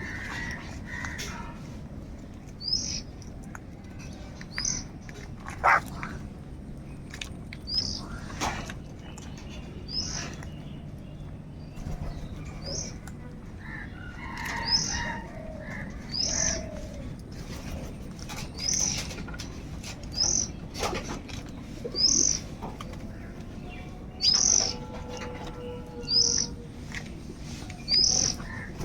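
Birds calling: a short, high-pitched chirp repeating every second or two, with a few lower, harsher crow caws near the start and around the middle, over a steady low background rumble.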